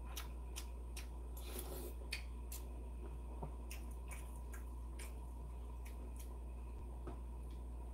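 A man chewing a mouthful of beef offal soup close to the microphone: scattered soft wet clicks and smacks, over a steady low hum.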